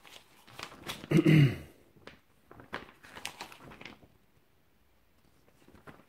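Paper rustling and crinkling as instruction sheets are handled, in short scattered bursts that die away about four seconds in. A man's short wordless hum sounds about a second in, and it is the loudest sound.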